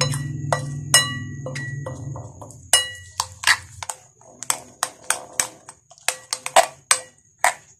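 Metal spoon beating eggs in a glass bowl: quick irregular clinks of spoon against glass, some ringing briefly. Low background music stops about four seconds in.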